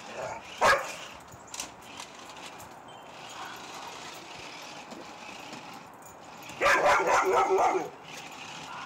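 Dog barking in a quick run of barks about two-thirds of the way through, with one short sharp sound under a second in.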